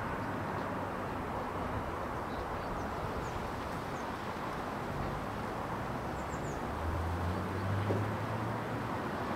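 Outdoor ambience: a steady rushing background with a distant engine drone that grows louder about seven seconds in, and a few faint, high bird chirps.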